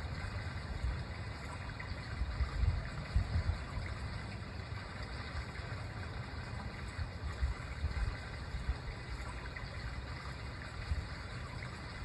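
Outdoor park ambience: a steady hiss with uneven low rumbling throughout.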